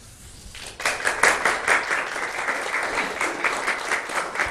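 Audience applause, many hands clapping, starting about a second in and continuing steadily.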